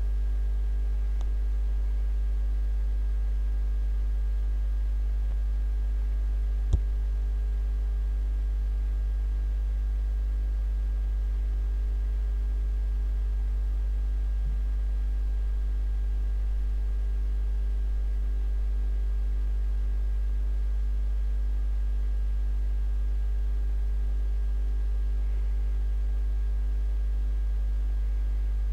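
Steady low electrical mains hum with a faint buzz of overtones above it, and one sharp click about seven seconds in.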